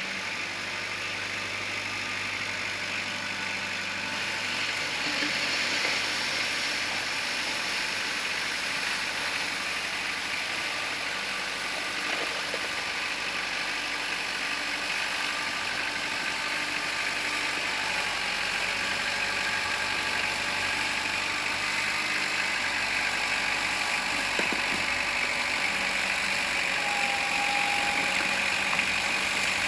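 Kubota L4600 tractor's diesel engine running steadily while being worked, its note shifting a little with load, with a few faint knocks.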